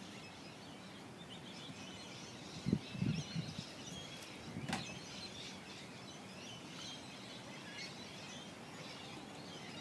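Faint bird chirps and twitters over quiet outdoor ambience, with a few low thumps about three and five seconds in.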